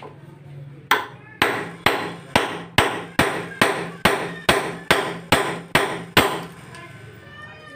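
Hammer striking a chisel held against the rim of an atta chakki millstone, thirteen sharp blows at about two a second, driving the strip around the stone down. A faint steady low hum runs underneath.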